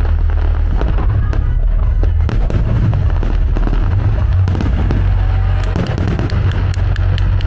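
Fireworks bursting, with a run of quick sharp crackles in the last couple of seconds, over music playing along with the show.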